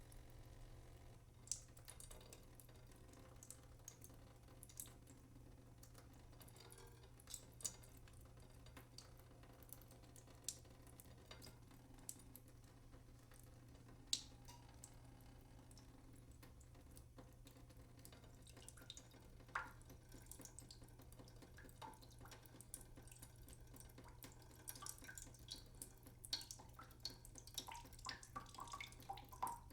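Water dripping: single drops falling at irregular intervals, a few each few seconds at first and coming faster near the end, some with a short pitched plink as they hit water.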